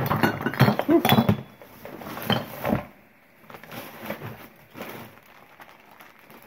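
Glass and ceramic items clinking and knocking together as they are moved around in a box, busiest for the first few seconds, then dying down to quieter handling.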